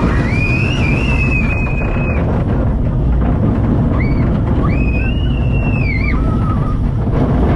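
Roller coaster ride: the train's steady rumble and wind on the microphone, with high-pitched screams from riders twice, each lasting a second or two.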